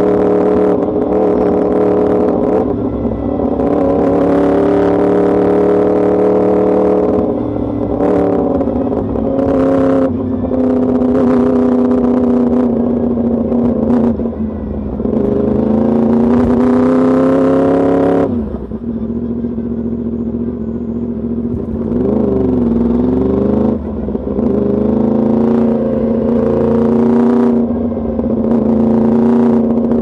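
Yamaha YZF-R1 60th Anniversary Edition's crossplane inline-four running through an Arrow Pro race exhaust under way, mostly at low to moderate revs. A little after the middle it pulls up steadily through the revs, then shuts off sharply. About three quarters through, the pitch dips and quickly climbs back.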